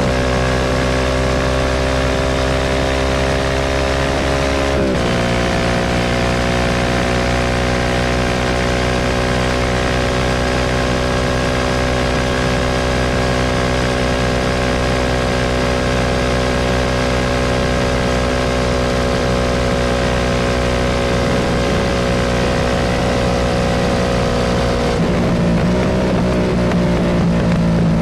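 Motorcycle engine running while riding. Its pitch jumps up quickly about five seconds in, then slowly falls for about twenty seconds as the bike eases off, and wavers near the end.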